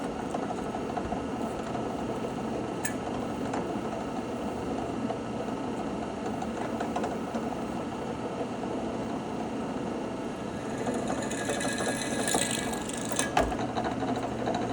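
A small power tool running steadily, with a hissier grinding stretch about two-thirds of the way through.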